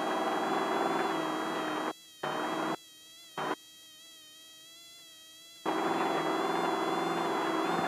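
Race vehicle's engine running at speed, a steady buzzing drone. It cuts out abruptly three times between about two and five and a half seconds in, then returns.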